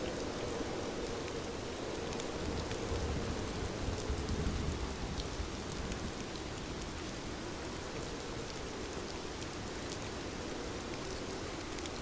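Steady rain falling, with scattered sharp drop ticks over an even hiss. A low rumble swells briefly a few seconds in.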